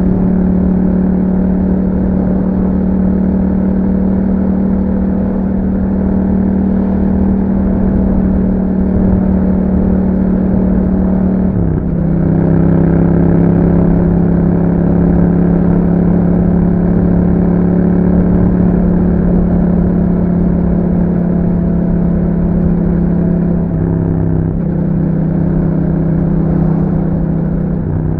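2021 Yamaha MT-07 parallel-twin engine running through an Akrapovic exhaust at steady road speed. The engine note drops sharply about twelve seconds in and then holds steady at a lower pitch, and it changes again near the end.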